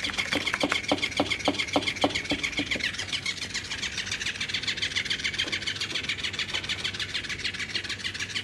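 Electric flopping-fish cat toy running: its small motor whirs with a fast, even clicking as the tail flaps, and for the first three seconds sharper taps come about five a second.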